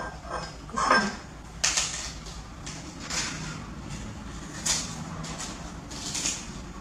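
Short rustling, scraping handling noises, about five over several seconds, over a low steady hum.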